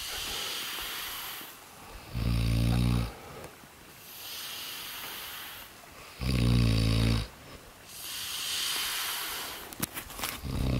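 A man snoring while asleep on his back. A loud, low, rattling snore comes about every four seconds, twice in full and a third starting at the end, with a softer hissing breath out between them. A few sharp clicks come near the end.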